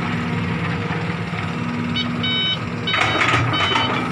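Hitachi hydraulic excavator's diesel engine running steadily. About two seconds in, a reversing alarm starts beeping in short repeated tones, and about three seconds in the machine noise grows louder.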